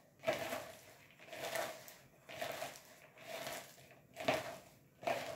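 Hands squeezing and kneading shredded carrot, cabbage and spring onion with seasoning in a plastic bowl: a soft rustling of the vegetables, repeated about once a second.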